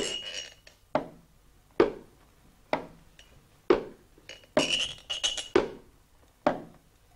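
Fingers tapping on metal tins and a glass bottle, clinking strikes with a short metallic ring. The strikes come unevenly, about one a second, with a quick run of taps just past the middle. This is children's improvised music for the duck, meant to portray its limping, waddling, stumbling walk.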